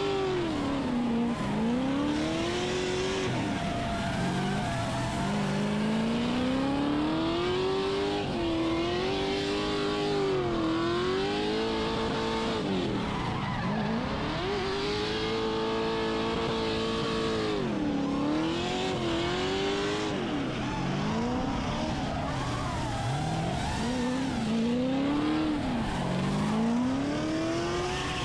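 Drift car's engine revving hard, its pitch climbing and dropping again every few seconds as the throttle is worked through the slides. Under it runs a steady hiss of tyre squeal from the rear wheels spinning and sliding on the asphalt.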